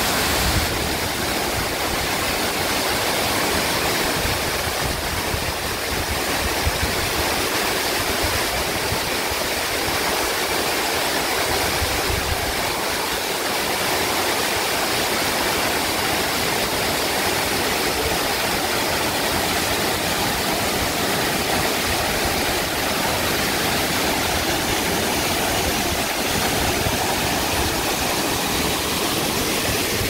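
Steady rush of a waterfall about 50 m high plunging into its pool.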